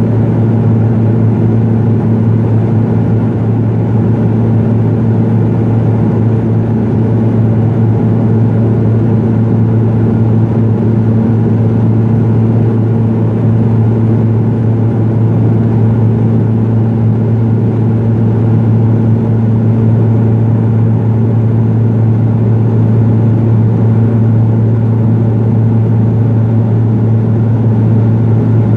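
Cabin noise of a Pilatus PC-12 climbing after takeoff: its single Pratt & Whitney Canada PT6A turboprop engine and propeller make a loud, steady drone with a deep, even hum.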